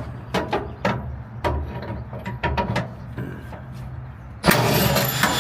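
Sharp metallic clicks and knocks of hand tools at work on a truck's interior, over a steady low hum. About four and a half seconds in, a loud rushing burst lasts about a second.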